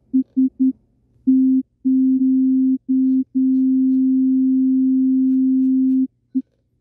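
TX-6 field mixer's synth engine playing a sine-wave tone at C4 from its step sequencer while the note length is turned up: quick blips about four a second lengthen into longer notes and then one long held tone that cuts off about six seconds in, followed by one more short blip.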